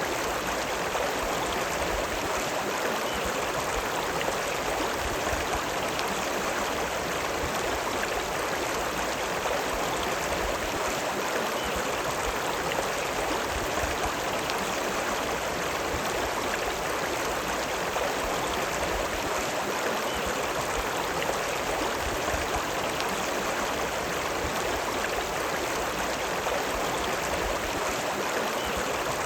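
The River Lune running: a steady, even rush of flowing water with no breaks.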